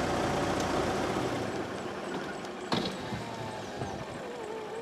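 Motorcycle and road-vehicle engines running as the motorcycle slows and comes to a stop. The engine noise drops about a second and a half in, leaving a quieter running engine. A single sharp click comes a little past halfway.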